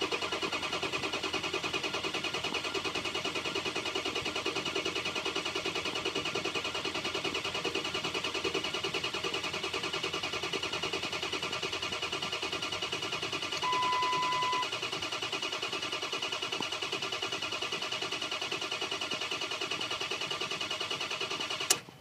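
2005 Ford 6.0 Power Stroke V8 diesel cranking on the starter without firing, in a steady, even rhythm, with a short beep about two-thirds of the way through; the cranking stops abruptly near the end. It is a crank-no-start: injection control pressure builds only to under 400 psi, short of the 500 psi it needs to start.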